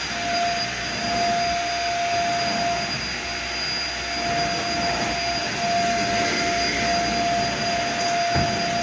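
Vacuum cleaner running steadily: a constant rushing noise with a fixed high whine.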